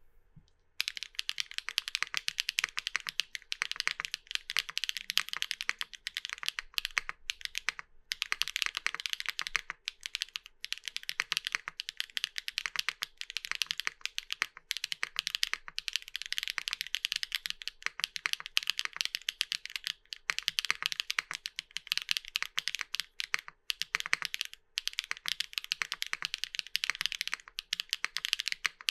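Continuous fast typing on a Tess65 mechanical keyboard with lubed HMX Aster linear switches on an aluminium plate: a rapid stream of clacky keystrokes with a few brief pauses.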